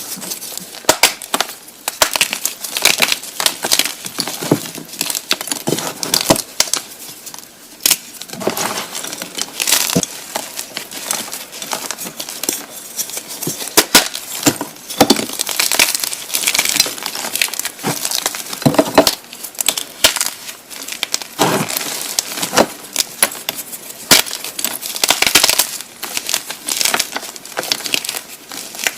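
Blocks of gymnastic chalk being crushed and crumbled by hand, a dense run of sharp, gritty crunches and crackles, irregular and with no steady rhythm.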